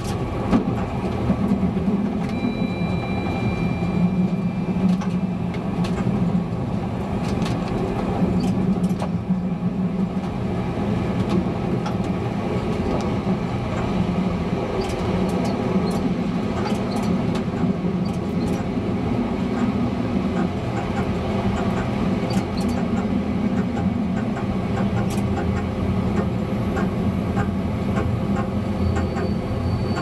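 Czech Railways class 854 diesel railcar running at speed, heard from the driver's cab: a steady diesel engine drone, with the wheels clicking irregularly over rail joints and points.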